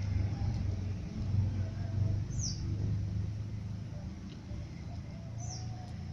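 A steady low rumble, with a bird's short, high chirp falling in pitch twice, about three seconds apart.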